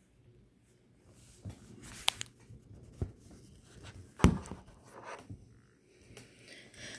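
Handling noise from hands moving things on a tabletop: about four sharp taps and knocks with faint rustling between them, the loudest a little after four seconds in.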